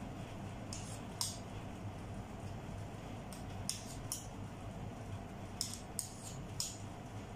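Metal spoons clicking and scraping against each other while mashed potato is scooped and spooned out: about eight short, sharp clicks at uneven intervals, with a steady low hum underneath.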